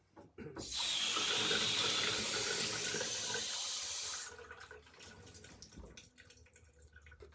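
Hot water running from a laundry-sink faucet into a foam cup, a steady hiss that starts about half a second in and is shut off after about four seconds.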